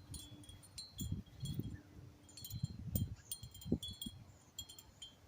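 Wind chime tinkling: scattered, irregular strikes ringing at a few fixed high pitches, with low rumbles underneath.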